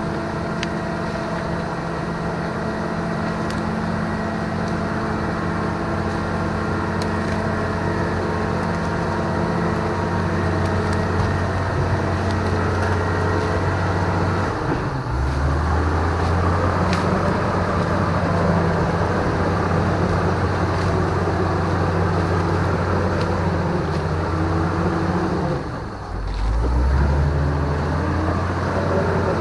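The engine of a log-pulling machine running steadily. About halfway through its note drops lower. Near the end it dips briefly, then picks up again.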